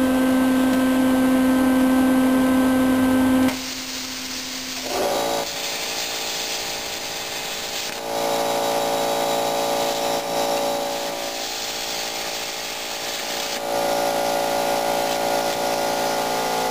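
Thermal Dynamics Pakmaster 50XL plasma cutter cutting through thin sheet steel: a loud steady hum breaks off sharply about three and a half seconds in. It is followed by the machine's steadier hum with a hiss over it, which grows louder from about eight seconds in while the arc cuts.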